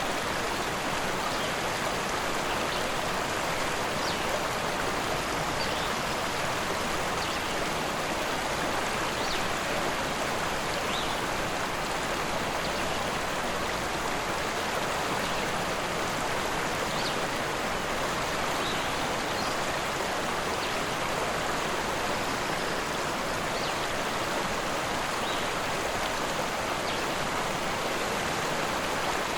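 Forest river rushing: a steady, even rush of flowing water that does not change.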